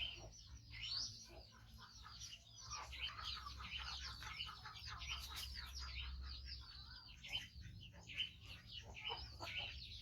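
Many small birds twittering together, a dense run of short, high, quickly falling chirps.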